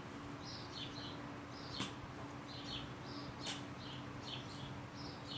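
Small birds chirping in short, high, repeated notes, with two sharp clicks and a faint steady hum underneath.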